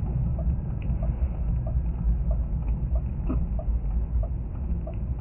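Car's hazard warning lights ticking steadily, about three ticks a second, over the low rumble of the car driving on a snowy road, heard inside the cabin.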